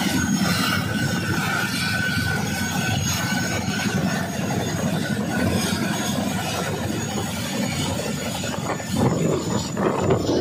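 Boeing CH-47 Chinook twin-rotor helicopter running on the ground with its rotors turning: a steady, loud heavy rumble of rotors and turboshaft engines, with a thin high whine over it.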